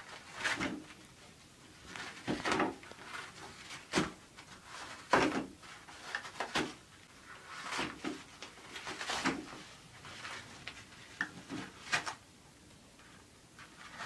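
A cat clawing and pulling at a toilet paper roll on its holder: irregular bursts of paper rustling and tearing, about one every second or so, with the roll knocking on the holder.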